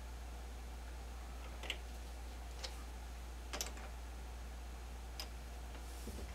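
A few faint, sharp metal clicks, about four, spaced a second or so apart, from a lathe's four-jaw chuck being adjusted with its chuck key and turned by hand while the workpiece is centred. A steady low hum runs underneath.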